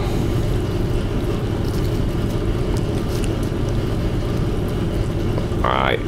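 A steady low machine hum from kitchen equipment running in the background. Near the end there is a short scrape as a ceramic bowl is lifted off a plastic cutting board.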